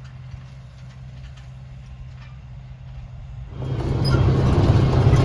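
Tractor engine running steadily, faint at first with a few light clicks, then about three and a half seconds in it becomes much louder and noisier.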